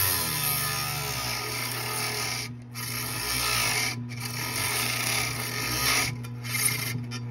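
A small power tool's blade cutting through plastic: a steady motor hum under a rasping cut.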